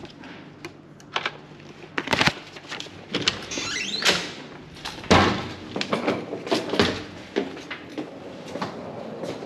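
Hotel room door being opened: clicks and knocks from the key-card lock and the lever handle, a short rising squeak about halfway through, and a loud thump a little after as the door swings open.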